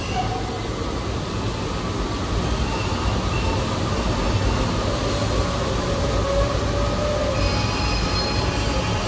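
New York City subway train running in the station: a steady low rumble that grows somewhat louder about two seconds in, with faint thin squealing tones above it and higher ones coming in near the end.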